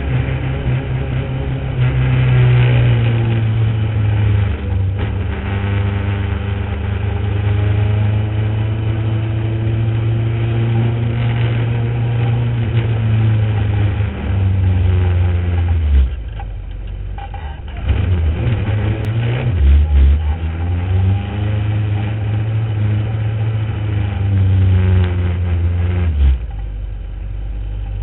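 Onboard sound of a Legend race car's four-cylinder motorcycle engine running hard on track, lapping at racing speed. It lifts off sharply about halfway through, picks up and climbs in pitch again, then eases to a lower, steadier note near the end.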